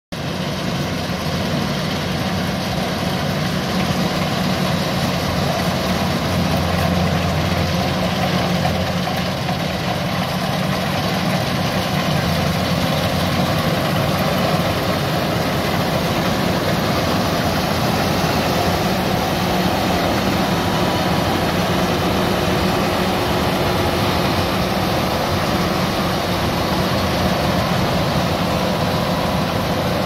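Kubota DC-105X rice combine harvester's diesel engine and machinery running steadily, a constant low hum at an even level.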